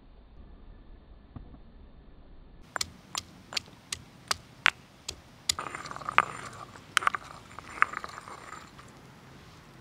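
Stone pestle pounding ginger and garlic in a stone mortar: a run of sharp knocks, about two or three a second, starting a few seconds in. Then grinding strokes scraping the paste around the bowl, with a few more knocks, trailing off near the end.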